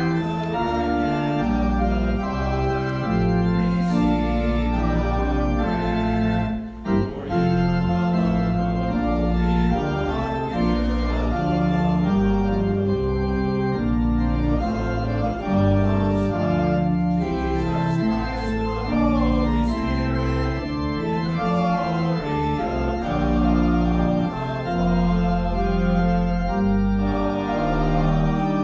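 Organ playing a hymn-like piece in held chords that change every half second to a second, with a brief break about seven seconds in.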